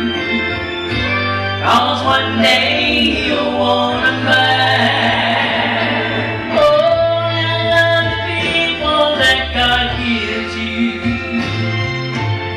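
A gospel song: singing over instrumental accompaniment with a steady bass line.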